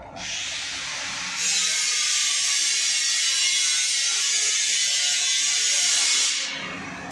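Flat steel bar being fed through a motor-driven roller flat-bar straightening machine: a loud, steady, high hissing and rasping noise that swells about a second in and dies away near the end as the bar passes through the rollers.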